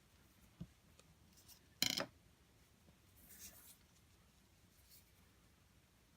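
Faint handling of tape on a hose fitting: a small click, then a short rasp about two seconds in as tape is pulled off the roll, and a softer rub about a second and a half later as it is worked on.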